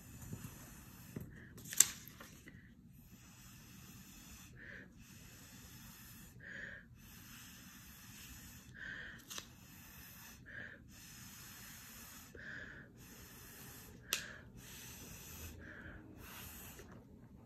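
Breath blown through a plastic drinking straw to push drops of food colouring across paper: about a dozen faint breathy hisses, each about a second long, with short pauses between them. Two sharp clicks cut in, one about two seconds in and one later on.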